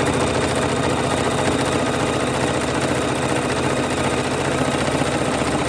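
Electric sewing machine stitching steadily at speed, its needle strokes running together into one continuous, even mechanical whir as it sews a seam through layered fabric and batting.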